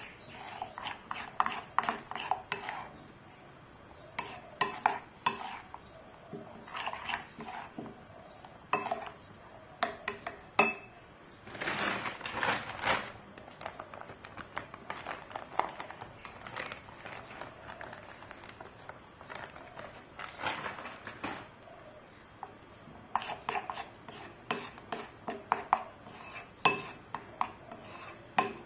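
Metal spoon stirring and scraping batter in a ceramic bowl, clinking against the bowl in quick runs with short pauses between. About halfway through comes one sharp ringing clink, then a couple of seconds of rustling as flour is poured in from a plastic bag.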